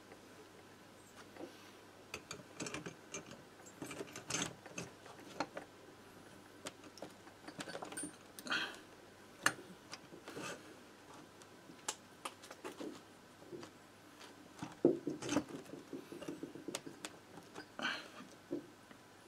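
Irregular small metal clicks, taps and scrapes as the finned cylinder of a Motobécane AV89 two-stroke engine is worked down over its studs and onto the piston with its new rings squeezed in, with a sharper knock about 15 seconds in.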